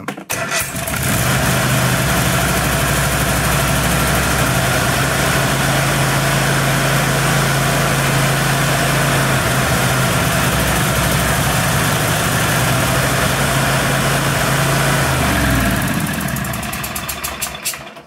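Kohler SV710 Courage 20 hp V-twin on a riding mower, cold-started on the key with the choke fully engaged. It catches within a second and then runs steadily. Starting without carb cleaner is the sign that the readjusted choke cable now closes the choke plate fully. Near the end the engine note changes and dies away.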